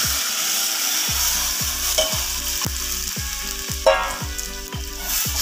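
Hot oil tempering of mustard seeds, curry leaves and fried garlic sizzling as cooked spinach mash is poured into the steel pot, then a steel spoon stirring through it. A short knock comes about four seconds in.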